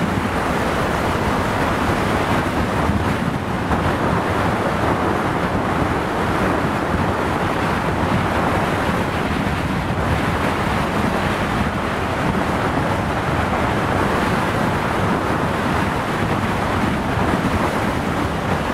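Steady wind rushing over the microphone of a motorcycle moving at highway speed, mixed with road and engine rumble.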